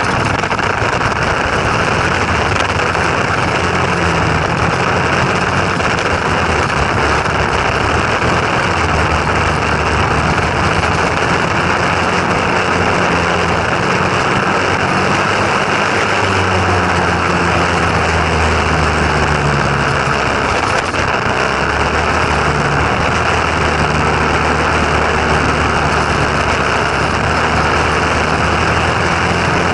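Small engine running continuously, its pitch wavering up and down, under a loud steady rushing noise.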